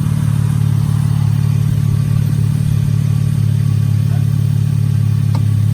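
2015 Chevrolet Camaro's engine idling with a steady low drone.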